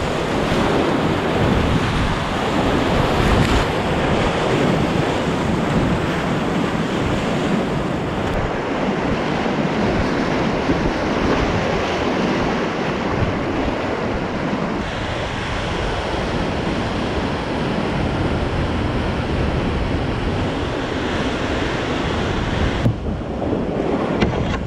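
Whitewater rapids rushing loudly around a kayak, close to a point-of-view camera's microphone, with water and air buffeting the mic. The roar shifts abruptly in tone several times.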